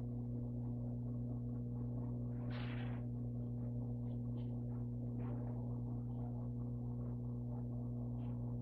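Steady low electrical hum with several even overtones, unchanging throughout, with faint scattered room noises and a brief soft rustle about two and a half seconds in.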